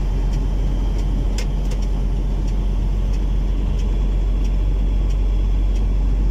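Mercedes-Benz truck's diesel engine and tyre noise heard inside the cab while cruising along the highway: a steady low rumble, with a few faint ticks.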